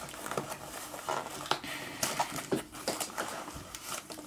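Packaging being handled as foam darts are taken out of it: rustling with scattered light clicks and taps.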